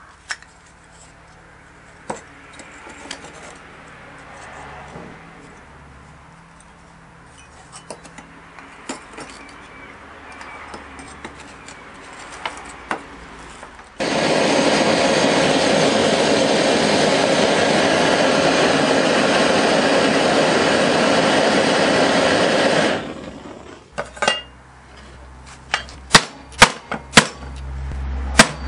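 A gas torch burning with a loud steady hiss for about nine seconds, heating a copper sheet to a glow, after faint handling clicks. The torch stops abruptly, followed by a run of sharp blows from a club hammer striking a wooden block laid on the copper sheet to flatten it.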